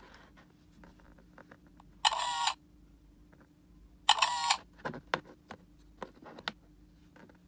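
Two camera-shutter sound effects played by the CCTV tester as snapshots are taken, each about half a second long and about two seconds apart, followed by a few light clicks.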